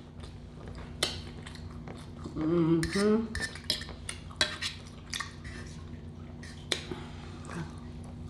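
Cutlery clinking and scraping against a plate during a meal: a series of sharp, irregular clicks, with a short voiced sound from the eater a little over two seconds in.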